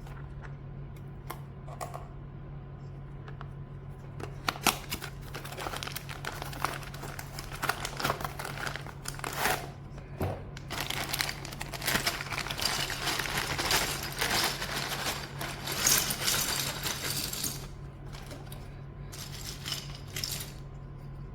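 Plastic keycaps and their packaging being handled: scattered sharp clicks and crinkling, busiest through the middle and again briefly near the end, over a steady low hum.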